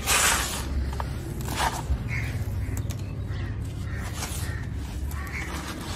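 Dry, gritty, crumbly dirt crunching and pattering as hands dig into it and let handfuls fall back onto the heap, in several short gritty spills, the loudest right at the start, over a steady low rumble.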